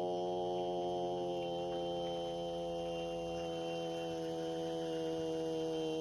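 Background music: a sustained drone of one held chord with many overtones, steady throughout.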